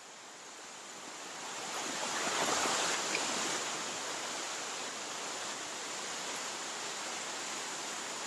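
A steady rushing noise that swells about two seconds in and then holds even.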